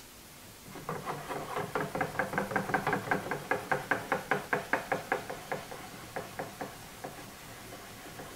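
A regular run of light clicks or knocks, about four to five a second, from parts of a 1917 Avey drill press's head being turned by hand. The clicks build up about a second in, hold, then grow fainter and slower near the end.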